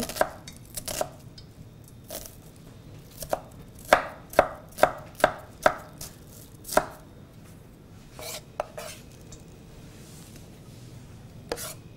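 Kitchen knife chopping a red onion finely on a wooden cutting board: sharp knocks of the blade on the board, in uneven runs, with a quicker series of about two strokes a second through the middle.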